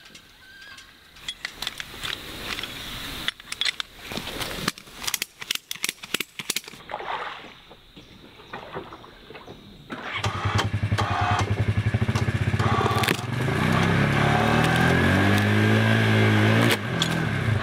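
Scattered clicks and knocks, then from about ten seconds in the engine of a Polaris Ranger side-by-side stuck in a mud hole revs hard, rising and falling in pitch as it tries to pull free.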